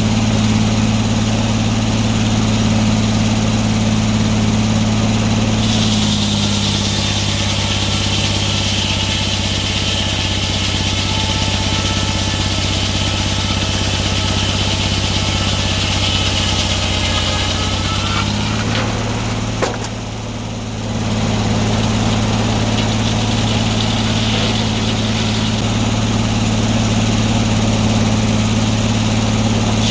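Antique sawmill's engine running steadily. About six seconds in its pitch drops under load as the saw cuts through the log, with a high whine from the blade. Around eighteen seconds the cut ends and the engine climbs back to its higher, steady speed.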